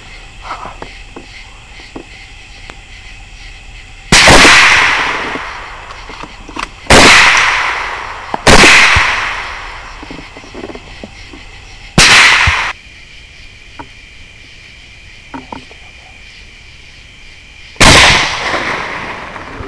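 Five rifle shots, irregularly spaced, each a sharp crack followed by an echo that fades over a second or two; one is cut off short.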